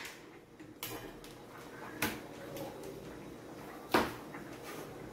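Kitchen clatter: three short knocks of a knife and plastic cutting board against a steel cooking pot, the loudest near four seconds in, as chopped green pepper and tomato are tipped in.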